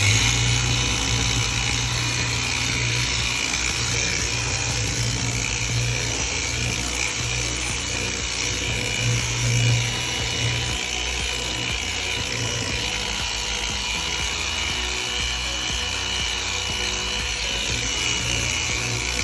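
Handheld power tool used on a boat's gel coat, spinning up at the start and then running steadily under load against the hull.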